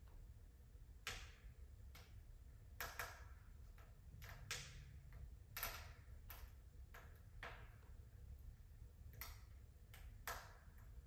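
Wood fire crackling faintly in a fireplace: irregular sharp pops and snaps, about a dozen, over a low steady rumble.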